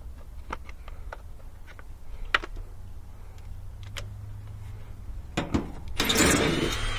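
Scattered light clicks of driver bits being handled in a plastic bit case and a bit being fitted into a cordless impact driver, then the impact driver runs in one short burst of just under a second near the end, on a screw of the condenser's side panel.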